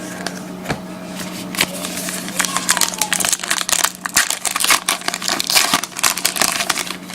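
Foil wrapper of a trading card pack crinkling as it is handled and opened, a rapid run of crackles that grows busier about two and a half seconds in.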